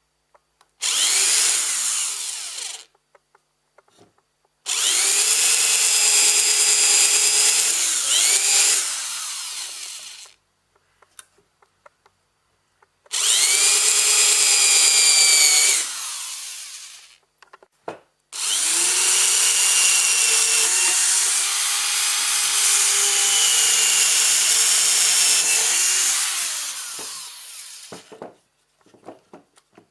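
Electric hand planer mounted as a vertical planer, switched on four times and run with a high whine while planing wood. Its pitch dips and recovers during each run, and each run ends with a falling whine as the cutter block spins down.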